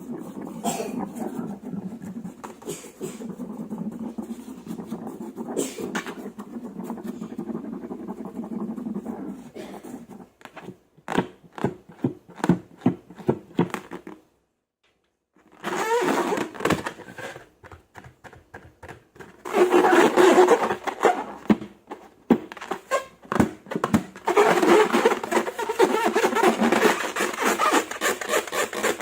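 Close-up handling sounds of slime: squishing, sticky crackles and scraping. They come in several segments with a sudden break of silence about halfway through, and the second half is louder.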